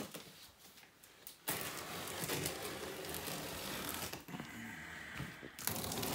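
Scissors slicing through packing tape and stretch film on a cardboard box, with the blade scraping and the cardboard rustling. The noisy scraping starts about one and a half seconds in.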